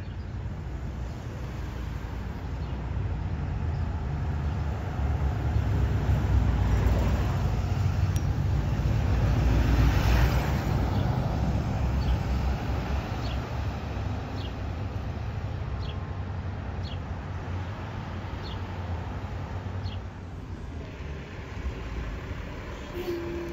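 A 2023 IC CE school bus heard from inside the cabin while driving. The diesel engine and road noise build to a peak about ten seconds in, then ease off and settle to a steady cruise. Faint ticks come about once a second in the latter half.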